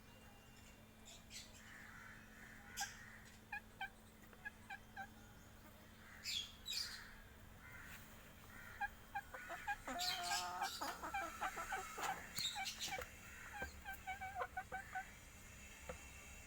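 Chickens clucking and calling in short, scattered calls, with a louder run of calls about ten seconds in.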